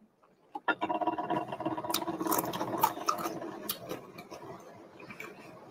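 Mouth sounds of a woman chewing a mouthful of macaroni and cheese: wet clicks and smacks, with a steady held hum under them from about a second in until about four seconds, then fainter chewing.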